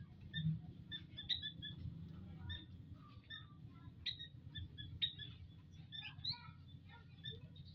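Small munias (emprit) in an aviary giving many short, scattered chirps and call notes that overlap throughout, over a steady low rumble.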